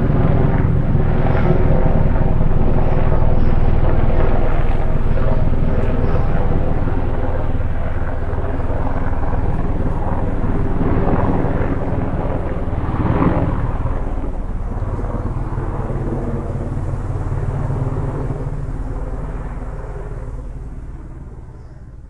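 Helicopter engine and rotor running, a steady drone with a deep rumble, fading away over the last few seconds.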